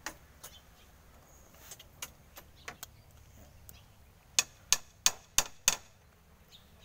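Hammer strikes on wood in a building job: scattered light knocks, then a quick run of five sharp blows about three a second a little past halfway.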